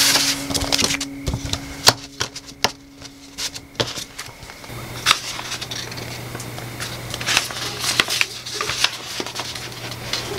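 Paper handling: printed sheets drawn out of an inkjet printer and then leafed through by hand, a scattered run of crisp rustles and light clicks over a low steady hum.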